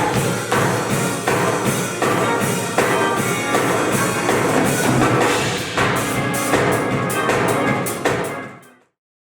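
Music with drums keeping a steady beat, fading out quickly to silence near the end.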